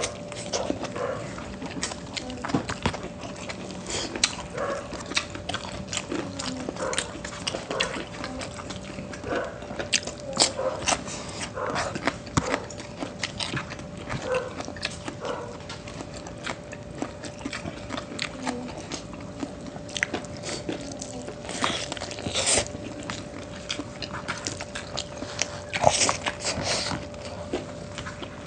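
Close-miked eating: chewing and mouth smacking on adobo and rice, with many short, irregular clicks. A faint steady hum runs underneath.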